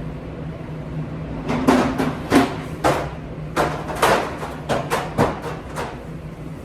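Dishes clattering as they are handled: about a dozen sharp knocks with short ringing tails over several seconds, above a steady low machine hum.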